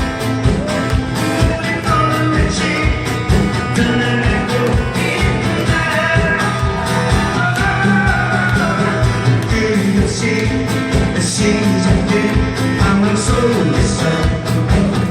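A trot song played live: a steady beat and bass under a wavering lead melody.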